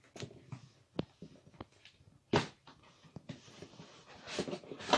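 Cardboard box being handled and turned over: scattered clicks and knocks, a sharp thump about two and a half seconds in, then a rustling scrape that ends in another sharp knock.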